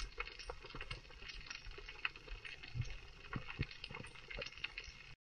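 Faint, irregular clicking and crackling, with a low rumble, recorded underwater; it cuts off suddenly near the end.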